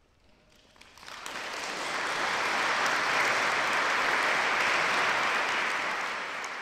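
Audience applauding: after about a second of hush, the clapping swells up quickly and holds steady, easing slightly near the end.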